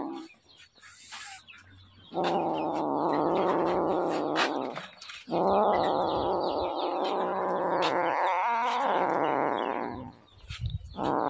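A kitten gives two long, drawn-out yowling growls, the first lasting about two and a half seconds and the second about five seconds, with a short break between them.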